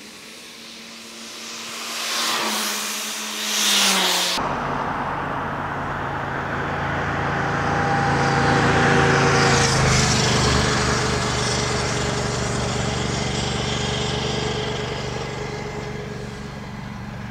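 Jet engines of a Boeing 747-400 freighter rolling out after touchdown: a loud rushing noise with steady whining tones. The sound changes abruptly about four seconds in, then swells to its loudest about halfway and eases off near the end.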